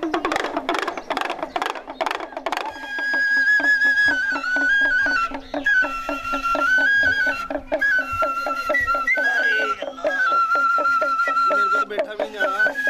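Snake charmer's been (reed pipe) playing a wavering melody over a steady drone, with quick, even drum beats; a burst of rapid drumming comes first, before the pipe enters after about two and a half seconds.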